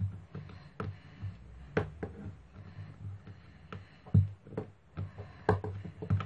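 Irregular light taps and knocks of hands and a white plastic roller on a craft board as a lump of modelling dough is pressed and rolled flat, over a low steady hum.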